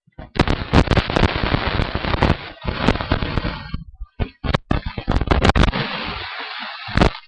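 Loud crackling, rustling noise with many sharp clicks on the webcam microphone, like the microphone being handled. It comes in two long stretches, broken by a short gap about four seconds in.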